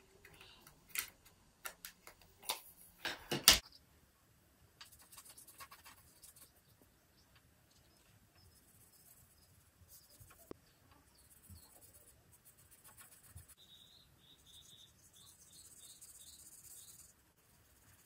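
A few sharp plastic clicks and knocks as a plastic watercolor paint box is handled and set down on the table, the loudest about three and a half seconds in. Then the faint, scratchy brushing of a paintbrush over crayon-colored paper.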